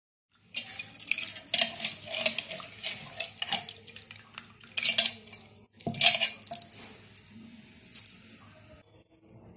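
Dishes and cutlery clinking and clattering in a quick run of sharp knocks, the loudest about one and a half, five and six seconds in, thinning out near the end.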